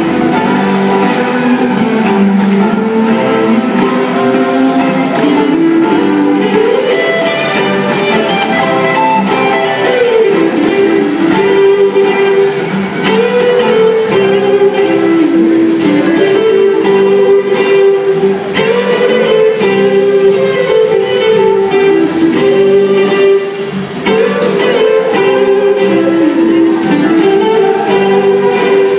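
Rock band playing live, with an electric guitar lead line that slides and bends in pitch over the drums, bass and keyboards.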